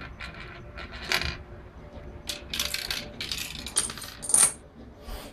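Dominoes and small plastic parts of a chain-reaction machine clattering and clinking against each other and the wooden floor, in a string of short rattling runs that grow busier and louder toward the end.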